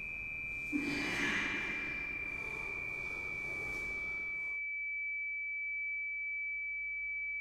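A steady, high-pitched electronic sine tone, held on one pitch throughout. Under it, room sound with a soft breathy rush about a second in cuts out sharply about four and a half seconds in, leaving the tone alone.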